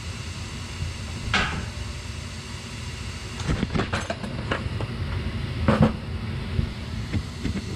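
Several knocks and clicks of parts and panels being handled at a gas furnace, over a steady low rumble; the loudest knock comes near the end.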